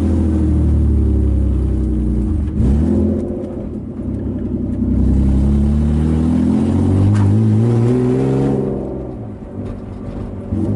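BMW E36 325is straight-six engine under load. About two and a half seconds in the revs dip and flare in a quick throttle blip. The revs then climb steadily for a few seconds and fall away at a shift, with another quick blip at the very end.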